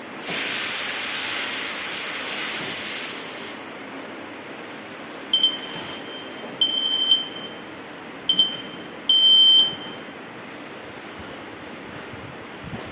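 Anka wireless interlinked smoke alarm's piezo sounder giving a few high, piercing beeps, short and long in an uneven pattern, the last and loudest about half a second long. Before the beeps comes a steady hiss lasting about three seconds.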